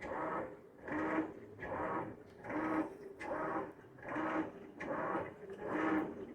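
Whirlpool Xpert top-load washing machine agitating in its wash cycle: the drive motor whirs as the washer churns back and forth, in even strokes about twice a second.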